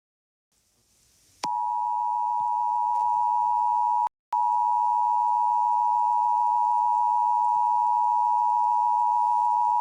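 Emergency Alert System attention signal: a steady two-note alert tone. It starts about a second and a half in, breaks off briefly about four seconds in, then carries on.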